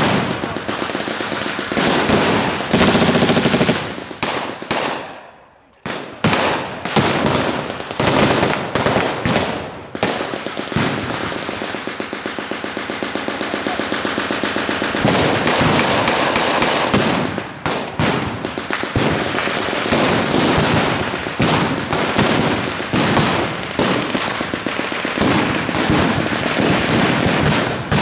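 Blank gunfire: long rapid bursts of machine-gun fire mixed with scattered single shots, with a short lull about five seconds in.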